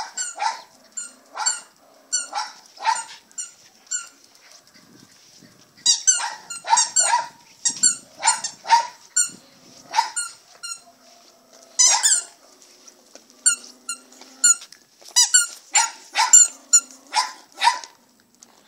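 Miniature schnauzer play-barking in short, high, sharp barks, about two a second, in runs broken by brief pauses.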